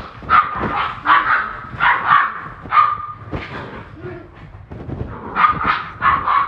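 Standard poodle puppies yipping and barking in play: many short, irregular high yips, quieter for a moment about four seconds in.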